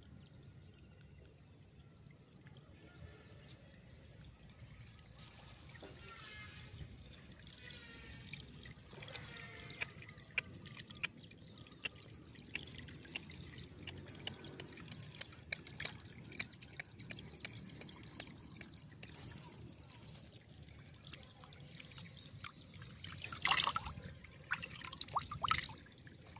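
Shallow water in a flooded rice paddy trickling and lapping, with many small drips and ticks. A few louder splashes come near the end.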